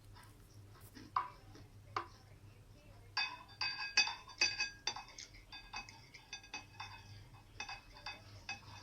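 Cutlery clinking and scraping on a plate while salad is eaten. A couple of sharp clicks come first, then a quick run of ringing clinks from about three seconds in.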